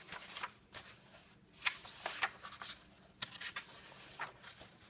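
Paper pages of a coloring book being handled and turned: a series of soft, irregular rustles.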